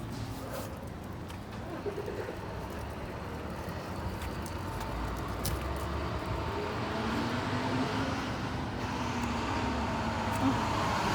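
Road traffic: a passing motor vehicle's engine and tyres, growing louder through the second half as it comes closer.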